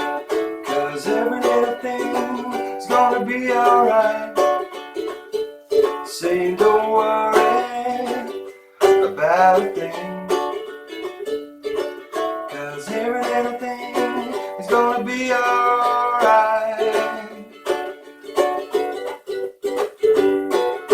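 Ukulele strummed chords in a steady rhythm.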